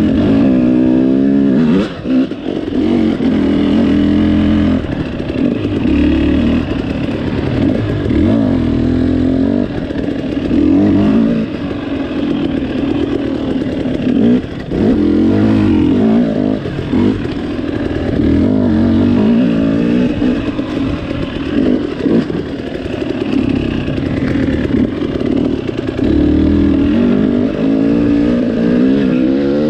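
Dirt bike engine being ridden off-road, revving up and falling back again and again as the throttle opens and closes, with brief drops in between.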